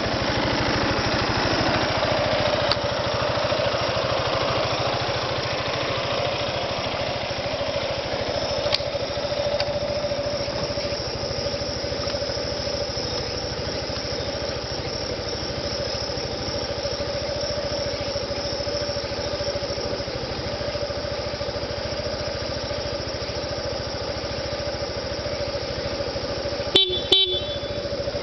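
Yamaha Majesty 250 scooter's single-cylinder engine idling steadily, then two short horn beeps near the end.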